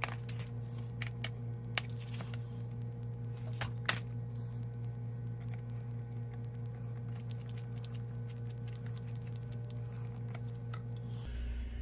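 Light scattered clicks and ticks of a precision screwdriver turning small screws into a laptop's plastic bottom cover, busiest in the first few seconds with the sharpest click about four seconds in, over a steady low hum.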